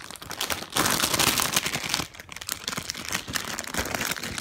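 Plastic packaging crinkling as a squishy toy is pushed into its bag, loudest for a second or so starting just under a second in, then crinkling more quietly.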